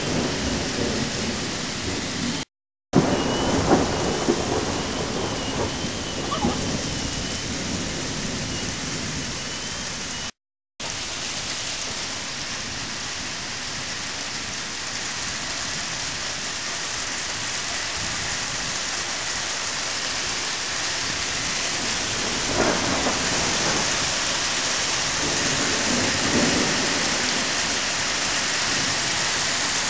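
Heavy thunderstorm rain pouring steadily, with a rumble of thunder about three seconds in and several sharper thunderclaps in the last third. The sound cuts out completely twice, briefly.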